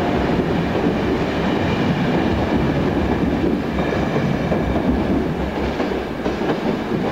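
Passenger train coaches rolling along the platform track, a steady rumble of wheels on rails.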